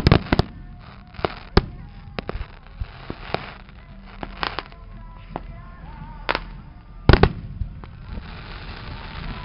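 Fireworks display: aerial shells bursting in an irregular series of sharp bangs, about a dozen, with the loudest cluster about seven seconds in.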